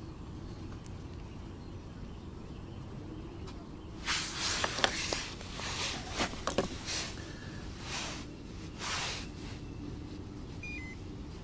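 Low steady background rumble. About four seconds in come several short rustles and a few sharp clicks as fishing tackle is handled close to the microphone.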